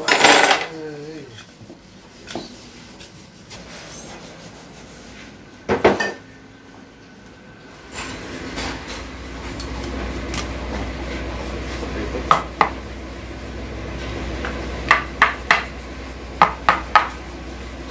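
Hand tools clinking and knocking on the metal case of an automatic transmission being taken apart, including a sharp knock about six seconds in. From about eight seconds a steady low hum sets in, and near the end comes a run of quick sharp clicks, several a second.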